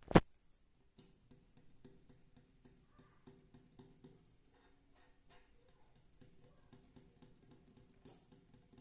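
ASMR tapping: one sharp loud knock just after the start, then a long run of light, quick, irregular taps.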